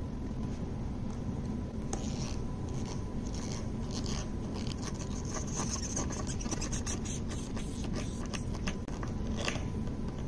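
Hand screwdriver driving a brass screw through a cork foot into an end-grain wooden cutting board: irregular scraping, creaking clicks as the screw turns, starting about two seconds in and stopping near the end, over steady low background noise.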